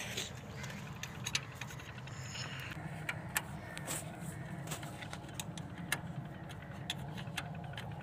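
Scattered metallic clicks and taps of a spanner and hands working on fittings of a New Holland tractor's diesel engine, over a steady low hum.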